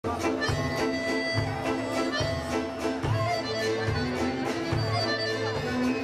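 Accordion and symphony orchestra playing together: held accordion and string notes over a low bass note that pulses a little more than once a second, with sharp struck notes on top.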